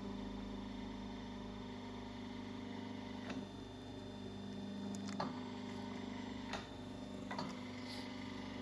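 Crimping press humming steadily while it presses the aluminium ring down onto an air spring's rubber bellows, with a few faint clicks.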